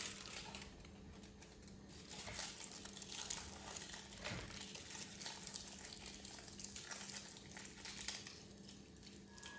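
Faint, irregular crinkling of aluminium foil being wrapped and pinched around the bone ends of fried chicken wing lollipops, over a low steady hum.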